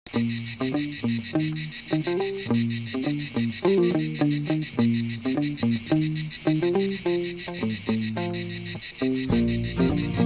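Intro music: a tune of short pitched notes changing about three times a second, over a steady high chirring of insects.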